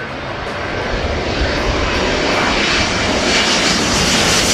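Twin-engine jet airliner on its landing approach passing low overhead, its engine roar growing steadily louder.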